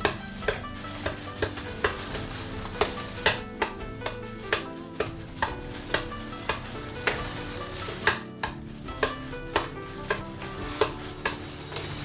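Freshly boiled eggs being tapped to crack their shells, a sharp crack about twice a second over the crinkle of thin plastic food-prep gloves.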